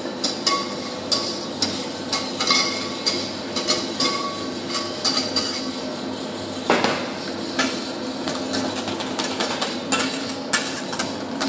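Wire whisk and metal saucepan clinking against a stainless-steel bowl as hot cream is poured in and whisked for custard: irregular ringing metallic clinks, several a second, with one heavier knock a little past halfway.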